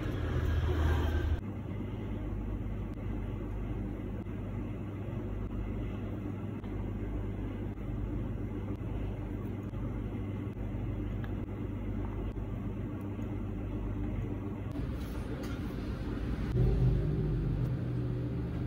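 Steady low background rumble with no clear rhythm, swelling slightly about a second in and again near the end.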